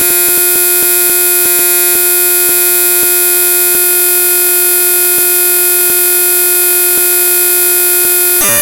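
Raw binary data of the avcodec.dll library played as audio: a loud, buzzing drone of fixed tones. For the first few seconds it flickers in quick steps, then holds steady, and near the end it breaks into a noisy jumble.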